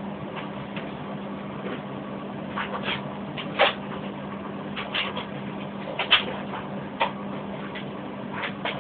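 Plastic clicks and knocks from a Nerf Recon CS-6 blaster being handled and its parts fitted together, at irregular intervals and loudest a few seconds in and around six seconds in. The freshly spray-painted parts are very stiff to fit. A low steady hum runs underneath.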